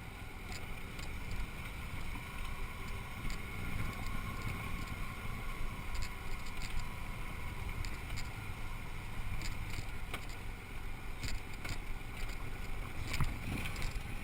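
Motorcycle engine running steadily, heard through a helmet camera with wind rumbling on the microphone, and scattered sharp clicks and knocks.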